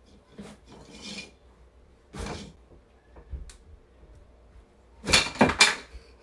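A paintbrush knocked and pushed across a hard floor by a cat: a few light knocks and scuffs, then a louder cluster of quick clatters about five seconds in.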